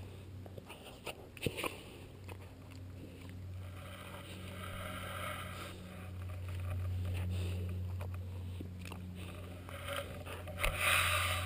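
A boxer puppy chewing a clothes peg close to the microphone: scattered sharp clicks and scraping of the peg against its teeth and the grass, with a louder rustle near the end, over a steady low hum.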